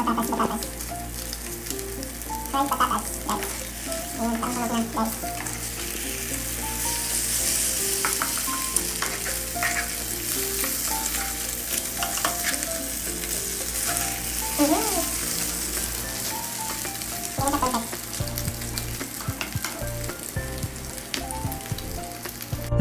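Diced potatoes and onions frying in hot oil in a pan, with a steady sizzle. A spatula scrapes and knocks against the pan now and then as the egg-and-potato patties are turned.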